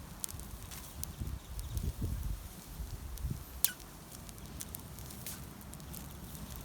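Wood fire crackling, with scattered sharp pops over a low uneven rumble; the loudest pop comes about halfway through.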